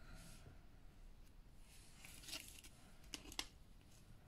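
Scissors snipping the ends of a knotted ribbon: a few faint, short snips about two and three seconds in.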